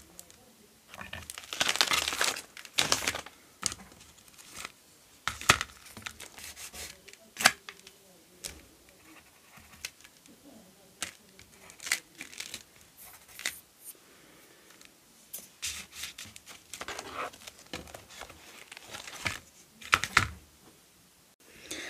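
Paper journal pages rustling and crinkling in irregular bursts as signatures are handled and sewn into the cover by hand, with scattered light taps and clicks. The longest rustle comes a couple of seconds in.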